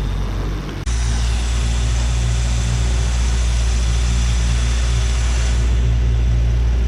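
Small boat's engine running steadily while trolling, a low even hum. About a second in it abruptly gets louder, joined by a loud rush of wind and water hiss that eases off near the end.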